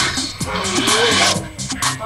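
Background music cue, with a burst of hiss-like noise in the middle.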